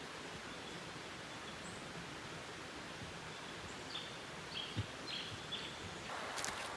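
Steady outdoor background hiss with a few short, high bird chirps in the second half, and a rise of louder rustling noise near the end.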